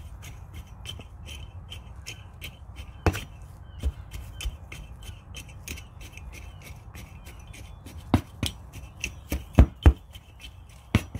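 A flat tool patting and pressing coriander seeds down into compost: irregular soft thumps, several louder ones about eight to eleven seconds in, over many light clicks.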